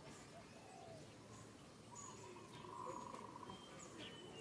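Faint outdoor background with scattered short bird chirps and whistles at several pitches, the loudest a brief buzzy call about three seconds in.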